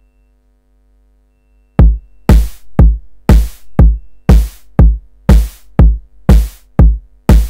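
Dave Smith Tempest analog drum machine playing a steady beat at about two hits a second, alternating short hits with longer, noisier ones, locked to Logic's MIDI clock at 120 BPM. The beat starts about two seconds in, after near silence.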